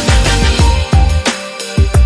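Background music with a steady electronic beat and heavy bass; the bass drops out briefly shortly before the end.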